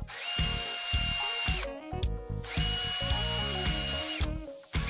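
Cordless drill running in two bursts of about a second and a half, each with a steady high motor whine, as it drills into a small hand-held part. A third burst starts at the very end.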